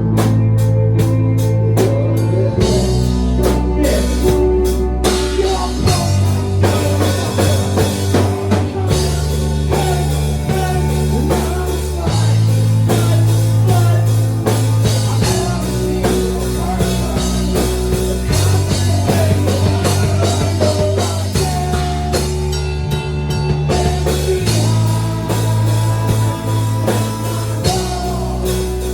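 Rock music with drums, guitar and bass, and a bass line that changes note about every three seconds.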